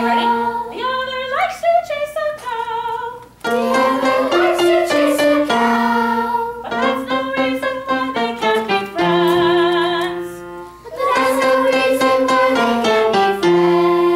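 Music: a tune with quick plucked or struck notes and held melody notes, one held note wavering with vibrato about two-thirds of the way through.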